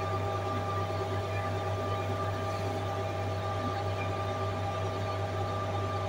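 Concrete pump truck running steadily: a low engine hum with a constant whine above it, no repeating stroke knocks.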